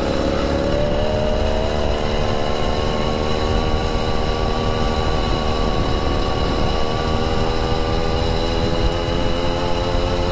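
A bicycle-mounted two-stroke gas engine runs under throttle. Its pitch climbs quickly in the first second as it takes up the load, then holds and keeps rising slowly as the bike gathers speed.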